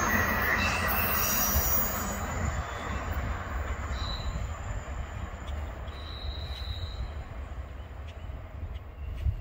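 Freight train cars rolling away on the rails, the rumble fading steadily, with brief high wheel squeals now and then. A single thump near the end.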